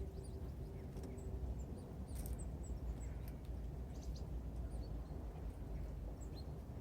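Small birds at a winter feeder giving scattered faint, short high-pitched call notes, with a few brief clicks, over a steady low rumble.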